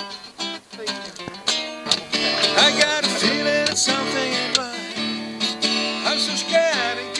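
Steel-string acoustic guitar played by hand, with sparse single notes for the first two seconds, then fuller picked and strummed chords. A voice sings along from about two seconds in.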